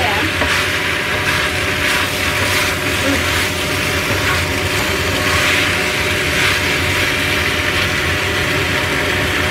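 Spatula stirring and scraping chicken gizzards and jengkol through a thick sauce in a stainless steel wok, the food sizzling, with a steady hum underneath.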